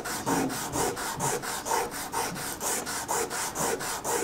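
Silicon carbide wet/dry sandpaper rubbed back and forth by hand over a test piece: a quick rasping stroke about four times a second. This is the abrading step that gives the surface a dull, uniform texture so that a strain gauge will bond to it.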